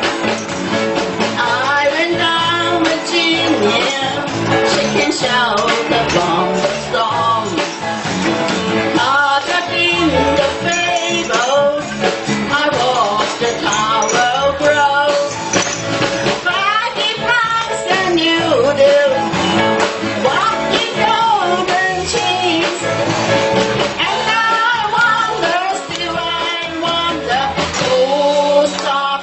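Music: a rock song with a voice singing over guitar and a steady band accompaniment.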